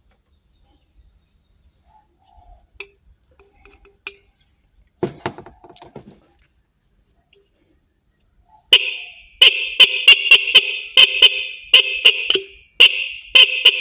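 A motorcycle's electric horn is sounded under test during adjustment. It blares loudly from about nine seconds in, in a few long blasts that sound choppy and fluttering, broken up several times a second. A brief clatter of handling comes a few seconds before.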